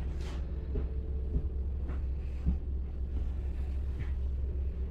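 Steady low hum inside a regional train carriage standing at the platform, with a few faint knocks.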